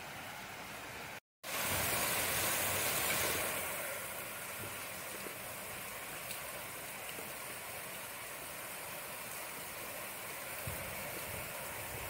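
Steady hiss of rain falling. It cuts out completely for an instant just over a second in, comes back heavier and brighter for about two seconds, then settles to an even fall.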